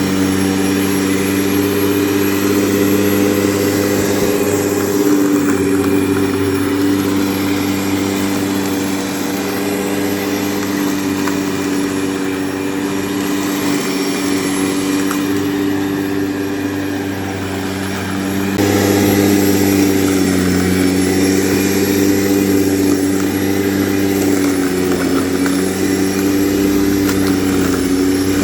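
Grunman corded electric lawn mower running: a steady motor hum with several even tones. It gets louder suddenly about two-thirds of the way through, and the pitch wavers slightly after that.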